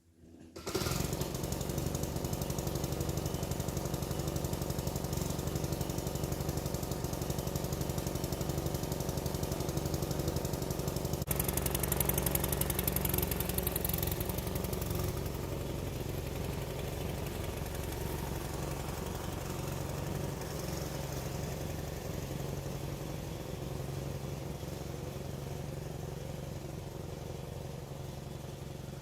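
An engine running steadily with a rough, rattling texture, starting abruptly about a second in.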